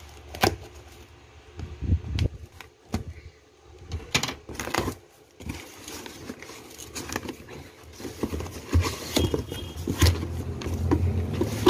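Scissors snipping through plastic strapping on a cardboard carton, sharp clicks and snaps. Later the cardboard flaps are pulled open and plastic snack bags inside rustle and crackle as they are handled.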